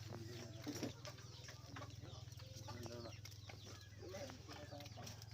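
Faint, scattered short animal calls over a steady low hum.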